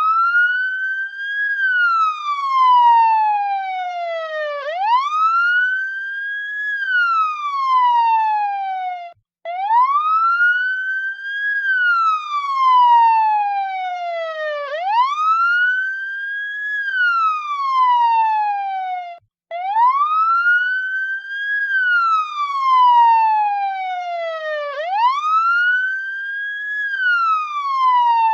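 Police siren sounding a wail: each cycle climbs in pitch in about a second and a half, then falls slowly over about three seconds, repeating about every five seconds. The sound breaks off for a moment twice, about nine and nineteen seconds in.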